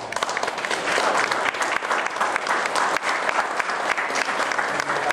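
Audience applauding: many people clapping at once, dense and steady.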